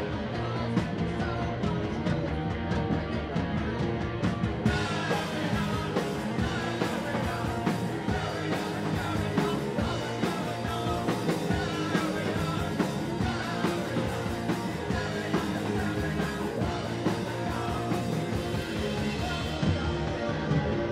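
Live rock band playing loud: electric guitar, a drum kit with cymbals, and a singer at the microphone. The sound turns brighter and fuller with more cymbal about five seconds in, thinning again near the end.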